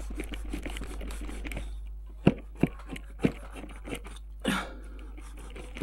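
Kitchen knife sawing through a shawarma's toasted lavash wrap: a steady crackling of the crisp wrap, with several louder sharp crunches from about two seconds in.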